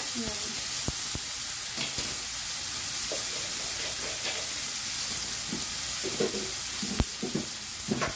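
Oil sizzling steadily in a frying pan around a pan-fried whole fish with ginger strips and halved cherry tomatoes. There are a few light clicks of metal tongs against the pan, the sharpest about seven seconds in.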